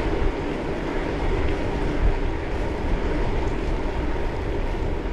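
Wind rushing over a bike-mounted action camera's microphone, with the hum of bicycle tyres rolling on tarmac while riding along.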